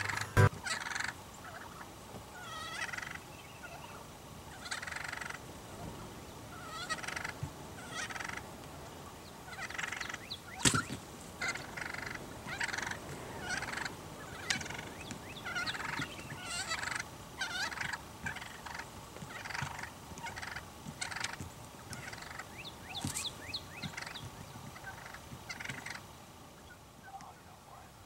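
A flock of wild turkeys calling: many short calls one after another, dying away near the end. One sharp click about ten seconds in.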